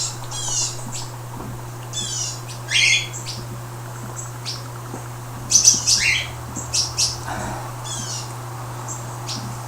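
A small bird chirping and twittering in short bursts of quick, high, falling notes every second or two, over a steady low hum.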